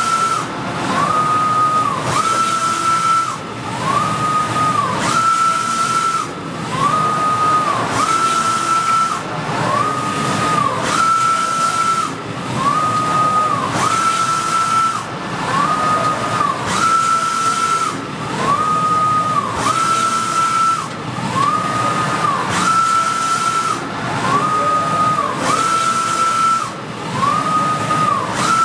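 Softjet-K wide-format inkjet printer with Kyocera print heads printing, its print-head carriage shuttling back and forth across the media. Each pass is a whine that rises, holds and falls. The passes repeat about once a second, alternating slightly in pitch, over a hiss.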